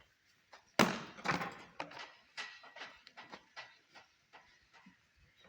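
A loud sharp knock about a second in, followed by a run of lighter, irregular knocks and clicks.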